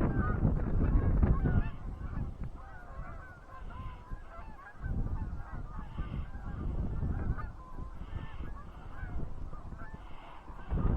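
A flock of Canada geese honking, many birds calling over one another in a continuous chorus of short honks.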